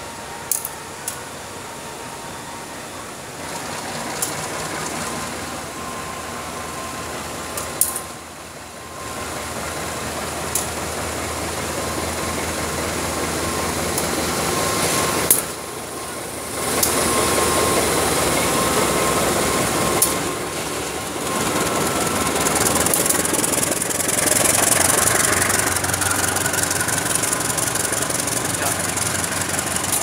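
A CC201 diesel-electric locomotive running past hauling passenger coaches, then the coaches rolling by, with sharp clicks of the wheels over rail joints and points. The sound grows louder through the first two-thirds as the train draws level.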